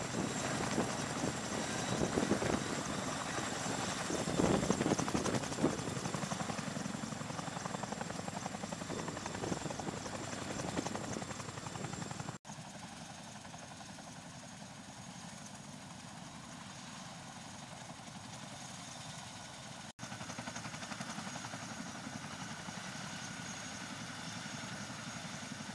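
CH-47 Chinook tandem-rotor helicopter hovering low and settling to the ground, its rotors beating steadily over the engines' running noise with a thin high whine. The sound drops noticeably quieter about halfway through.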